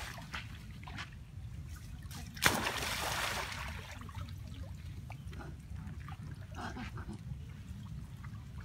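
Monkeys splashing in a flooded pool: one sharp, loud splash about two and a half seconds in as a monkey drops into the water, followed by about a second of spray, then lighter splashing and dripping.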